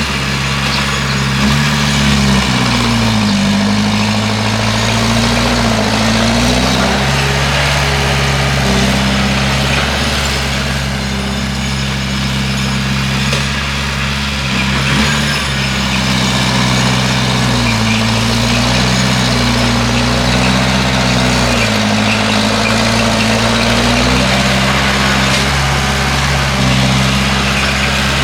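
Bulldozer's diesel engine running under load, its note rising and falling as it revs, twice over, between steadier stretches.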